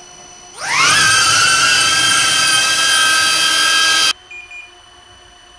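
DJI Avata 1 FPV drone's motors and stock propellers spinning up and holding a hover at close range. The whine rises in pitch and then holds steady as a loud, high, multi-toned drone, and it cuts off suddenly about four seconds in.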